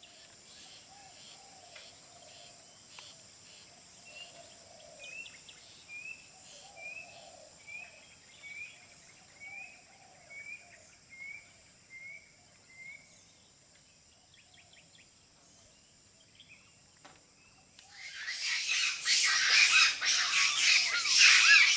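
Insects drone steadily in the forest while a bird repeats a short call about ten times, roughly once a second. About 18 seconds in, a loud, dense racket of fighting monkeys' calls breaks out and keeps going.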